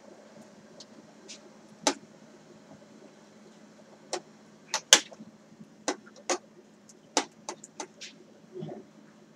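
Irregular sharp clicks and knocks, about a dozen, from a pot of figs being handled with a plastic-gloved hand, over a faint steady hum.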